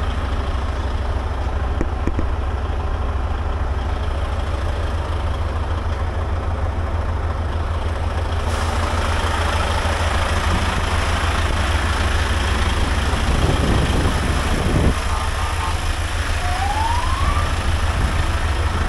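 Heavy diesel engine of a Jelcz military tractor truck idling with a steady, pulsing low rumble. A brief rising tone sounds near the end.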